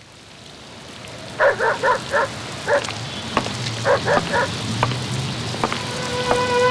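Steady rain falling, fading in, with a dog barking in two short runs of three or four barks and a single bark between them. A few sharp taps sound through the rain, and held music notes come in near the end.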